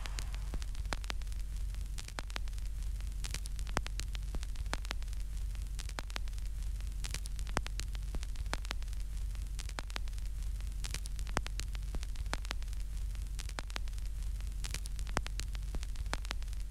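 Static crackle over a steady low hum, with scattered irregular clicks throughout.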